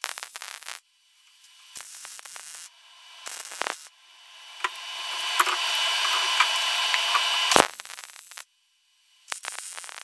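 Electric arc welding: tack welds struck on steel pipe and strap plate, heard as about five bursts of crackling hiss. The longest runs about three seconds in the middle, grows louder, and stops abruptly when the arc is broken.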